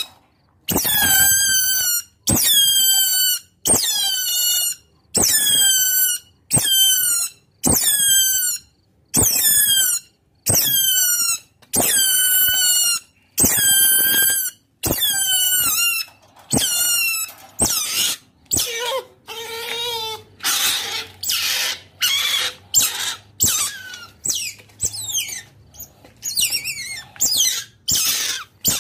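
Otter calling to others of its kind with high, squeaking squeals that fall in pitch, each under a second long and about one a second. About two-thirds of the way through the calls turn shorter, harsher and more rapid.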